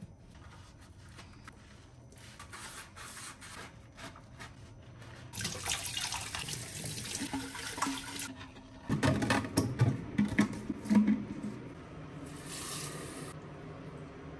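Kitchen tap running in several spells while a glass water bottle is rinsed under it, water splashing into the steel sink. A couple of seconds past the middle the loudest part comes: water sloshing inside the bottle, with a few knocks.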